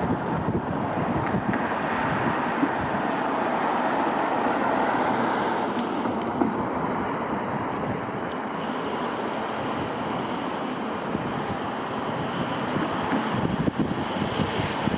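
Electric train running through the station, a steady rolling noise, with wind buffeting the microphone.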